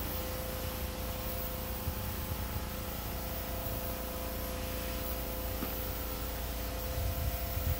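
Aerosol can of Dupli-Color vinyl and fabric spray paint spraying in a steady hiss onto a fabric umbrella canopy, with a faint steady tone under the hiss.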